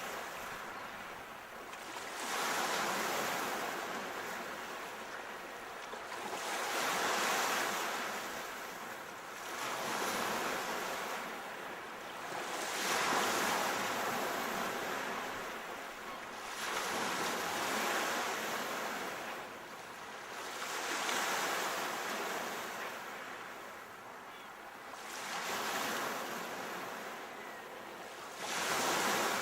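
Sea waves washing in, each one swelling to a rushing surge and fading away, about every four seconds.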